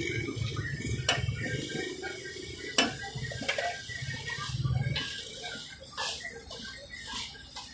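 Chopped mutton liver sizzling on a large flat tawa, with sharp clacks of metal spatulas striking and scraping the griddle. A steady low rumble runs underneath and drops away about five seconds in.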